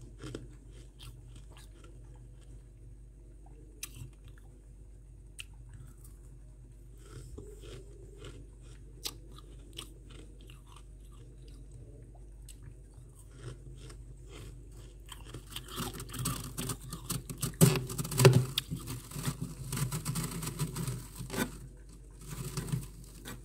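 Powdery freezer frost crunching. Sparse faint crackles come first, then several seconds of dense, loud crunching past the middle, and a last short burst near the end. A steady low hum runs underneath.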